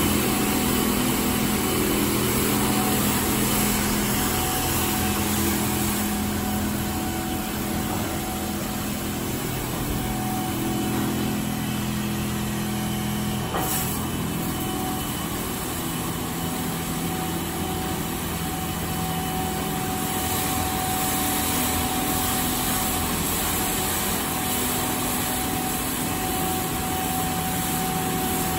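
D&S Quicksilver in-bay automatic car wash running: a steady machine hum from its pumps and motors, with the hiss of water spraying over a pickup truck. About halfway through there is a click and the pitch of the hum changes.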